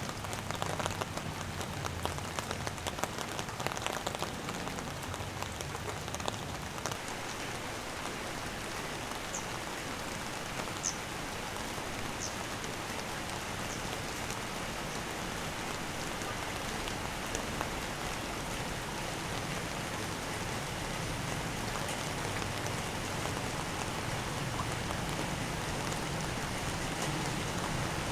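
Steady rain falling on hard surfaces, with scattered sharp drip ticks in the first dozen seconds.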